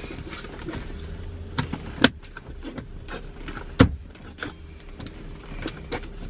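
Scattered clicks, rustles and knocks of things being handled inside a car cabin, with two sharper knocks about two and four seconds in, over a low steady hum.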